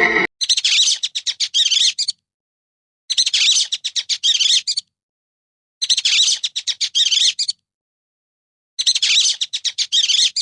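A bird's rapid high-pitched chirping, one twittering phrase repeated four times with silence between.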